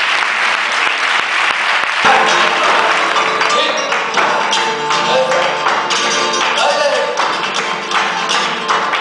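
Audience applause, then about two seconds in live flamenco music starts, with held and gliding pitched notes and many sharp, repeated percussive strikes.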